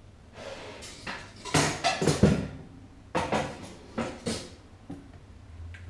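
Kitchen dishes and cookware clattering and knocking as they are handled, in a run of separate knocks, loudest about two seconds in.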